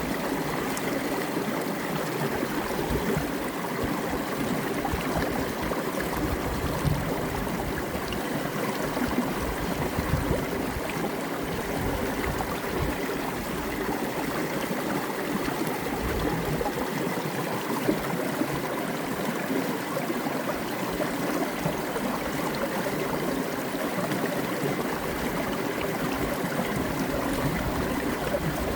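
Mountain creek water cascading down a rock, a steady splashing and gurgling rush with occasional low thumps.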